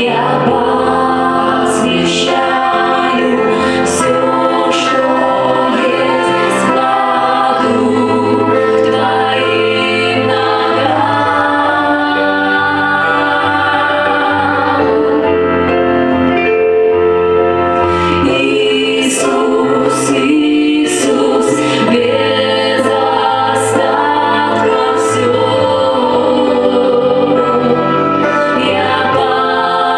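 Christian worship song: a choir and a female voice singing over steady music with a regular beat, which drops out for a couple of seconds about halfway through and then returns.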